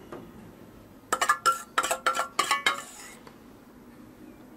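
Metal spoon clinking against dishes: a quick run of sharp, ringing clinks about a second in, lasting under two seconds, as sauce is spooned out.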